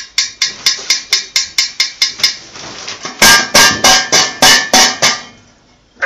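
Rapid, evenly spaced sharp taps on a hard object, about four a second, then after a brief pause a run of about seven louder knocks about three a second.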